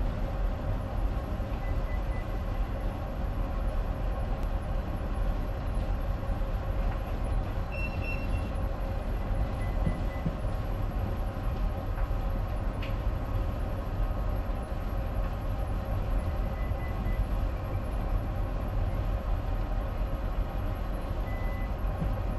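Steady low drone of a bulk carrier's machinery, with a constant hum of several steady tones over it. A few faint short electronic beeps come through now and then, one of them about eight seconds in.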